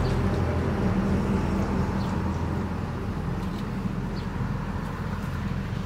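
Steady low hum of an engine running, a little louder in the first half, with faint short high chirps about once a second.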